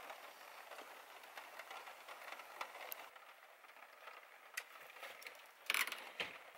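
Faint steady rain patter on a van's roof, with small clicks and rustles of someone moving about inside the van, and a brief louder rustle near the end.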